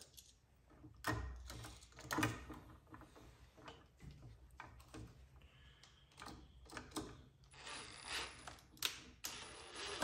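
Handling clicks and rattles of a switch and hand tools, then a Milwaukee FUEL cordless driver running in a short burst near the end.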